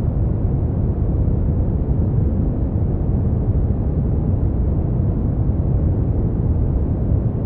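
Brown noise: a steady, even, deep rush with most of its weight in the bass and almost no hiss, unchanging throughout.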